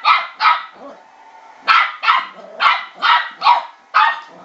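West Highland white terrier puppy, about twelve weeks old, barking in short, sharp barks: two near the start, then after a pause of about a second, a run of six in quick succession.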